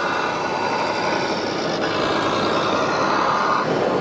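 Radio-controlled model truck running, its drive giving a steady whine over an even background noise. The whine stops near the end.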